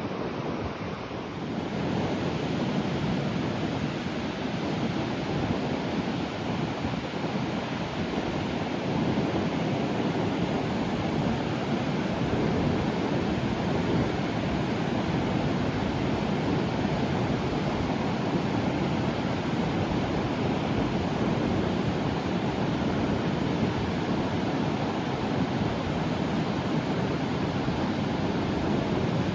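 Sea waves breaking calmly on the shore, heard as a continuous surf wash with no single crash standing out, a little fuller from about nine seconds in.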